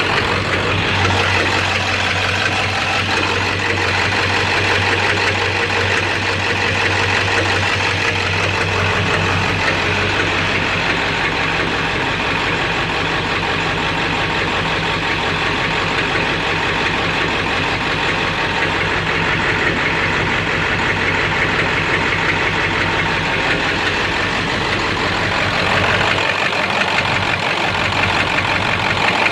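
7.3-litre diesel V8 running steadily with a rapid clatter. The engine has a knock, runs rough and lacks power, a fault the owner has not been able to pin down.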